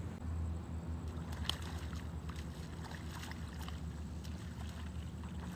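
A motor hums steadily at a low pitch, with a few faint clicks about a second and a half in.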